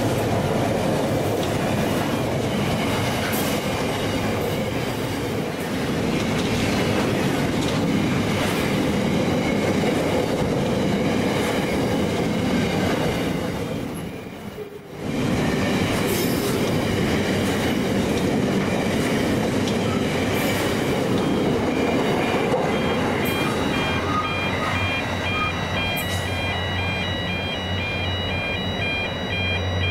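A train running along the line: a steady dense rail rumble of wheels on track. It dips briefly about halfway through. From about two-thirds of the way in, high, broken squealing tones ride over the rumble.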